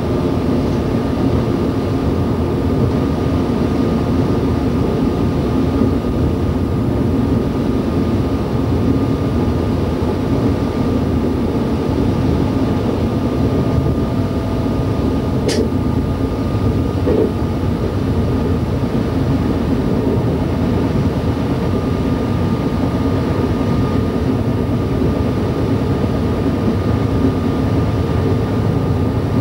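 Y2 diesel multiple unit running at speed, heard from the driver's cab: a steady engine drone and rumble from the wheels on the rails, with a steady high whine over it. A single short click about halfway through.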